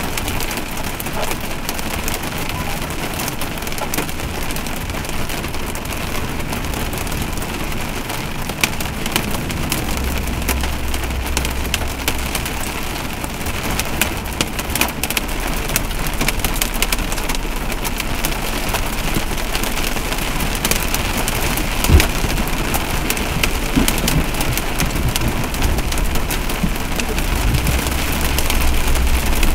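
Heavy rain falling hard, a dense patter of countless small hits. A low rumble comes in about a third of the way through, and there is one sharp, loud hit about three quarters of the way in.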